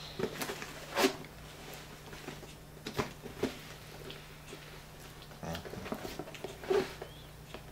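Tape-wrapped cardboard parcel being handled, turned over and worked at with scissors: a few short knocks and scrapes of cardboard and tape, over a faint steady hum.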